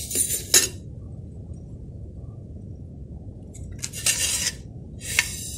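A wooden spatula scrapes and clinks briefly in a wide metal uruli of dry-roasted urad dal. After a quieter stretch, the pan scrapes and rattles at about four seconds as it is lifted off the wood-fired stove, with one more click near the end.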